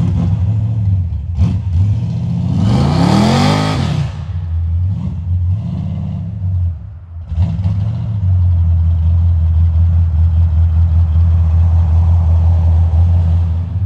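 Car engine revving hard: the pitch sweeps up about three seconds in, dips briefly near the middle, then holds steady at high revs for the last six seconds.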